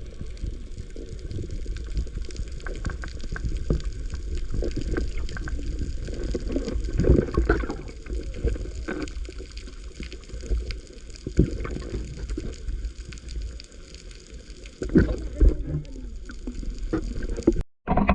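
Water gurgling and sloshing, muffled and low, with irregular knocks and splashes.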